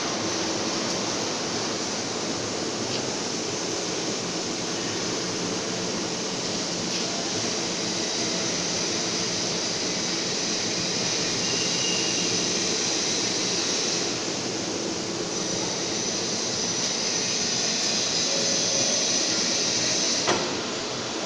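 Steady hissing and humming machine noise of a submerged-arc welding machine at work, cutting off with a sharp click near the end.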